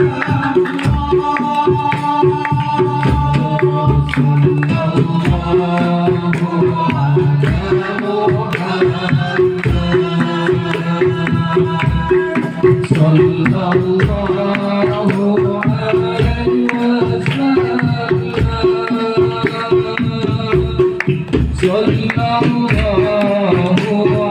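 Sholawat devotional singing accompanied by hand drums, with a deep drum stroke about once a second and lighter drum strikes filling in between.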